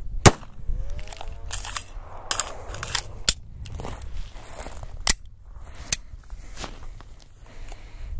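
A single semi-automatic pistol shot about a quarter second in, by far the loudest sound. It is followed by a scatter of much quieter clicks, knocks and rustles as the pistol is lowered and handled in dry brush.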